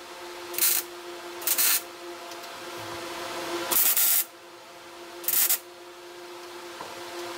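Four short bursts of welding-arc sizzle as tack welds are laid on a sheet-metal rust-repair patch, with a steady hum between them.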